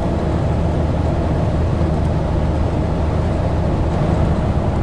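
Steady road and engine noise of a VW campervan driving, a constant low rumble with no change in pitch.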